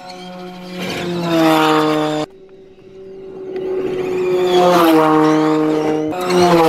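Audi RS Q e-tron E2 rally car passing at speed on gravel, twice: a steady humming drive tone that drops in pitch as the car goes by, over a rush of tyre and gravel noise.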